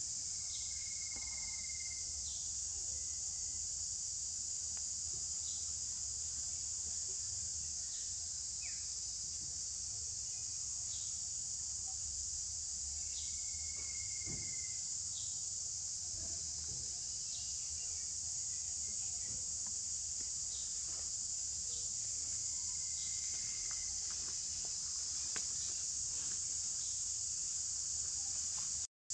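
Steady high-pitched insect chorus, unbroken throughout. A few faint short whistled calls sound now and then over it.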